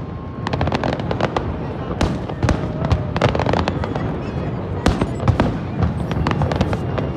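Aerial fireworks bursting: sharp bangs and rapid crackling as shells and glittering stars go off, in clusters of reports every second or so over a steady low rumble.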